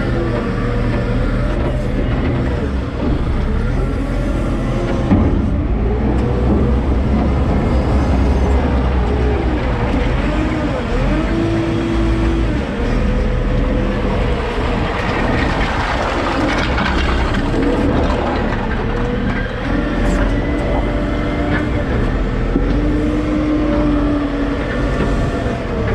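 JCB 531-70 telehandler's diesel engine and hydraulics heard from inside the cab, the pitch rising and falling as the revs change while it pushes firewood. About two-thirds of the way through there is a louder rattling, scraping stretch as the split logs are shoved along the concrete.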